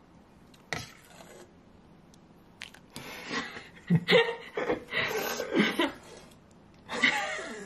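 People laughing and talking indistinctly, in two spells from about three seconds in and again near the end, after a short sharp noise about a second in.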